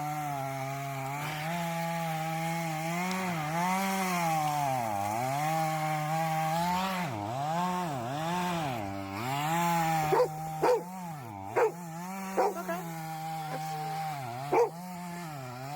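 Chainsaw running under load while cutting a tree, its engine pitch repeatedly sagging and recovering. A dog barks about five times in the second half.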